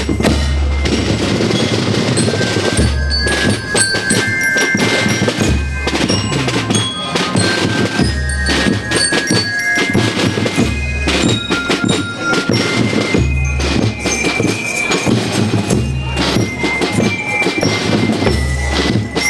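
Marching rhythm band playing: snare drums beating continuously under deep bass-drum strokes, while bell lyres play a melody of short, high ringing notes.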